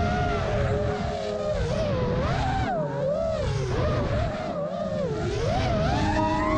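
Electric motors and propellers of an FPV quadcopter whining, recorded on the quad itself. The pitch swoops up and down constantly as the throttle changes through its flips and dives, over a low rush of air on the microphone.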